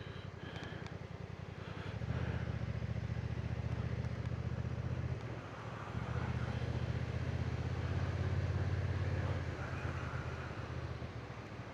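Motorcycle engine running under way, a low steady note that grows louder about two seconds in, drops briefly around the middle, comes back stronger and eases off near the end.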